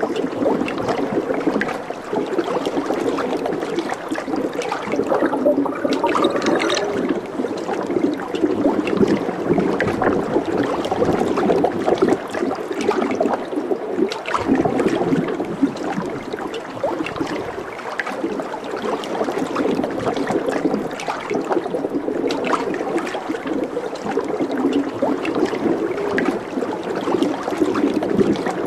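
Running water gurgling and babbling steadily, a dense bubbling with many small splashes and no pauses.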